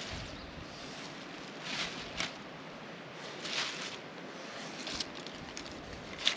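Plastic trash bag crinkling in several short bursts as litter is dropped into it, over a steady background hiss.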